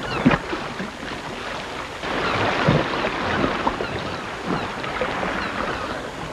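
Sea sound effect: waves washing and water lapping, getting louder about two seconds in.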